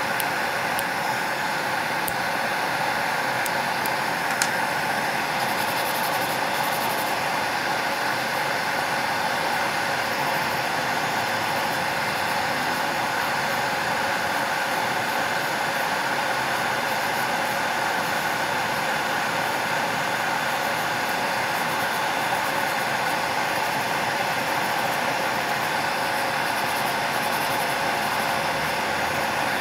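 Steady whir of a small motor or fan with a few fixed tones running through it, under faint scratching of a hand nail file on a fingernail. There is a small click about four seconds in.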